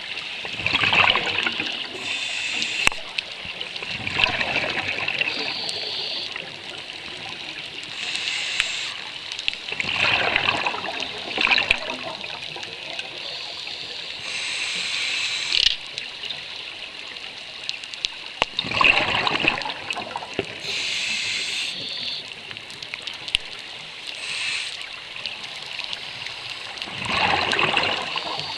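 Scuba regulator breathing close to the microphone: a hiss on each inhalation, then a gurgling burst of exhaled bubbles, about five breaths.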